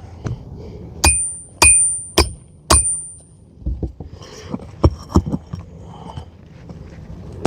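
Four ringing metal-on-metal taps about half a second apart, a hammer tapping a hooked pry tool to drive it under a roofing nail embedded at an angle beneath a shingle, followed by a few lighter clicks and knocks as the tool works the nail.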